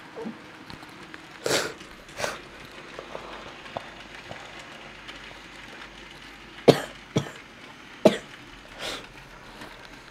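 A few short coughs and several sharp knocks and clicks, scattered irregularly over a faint steady background noise.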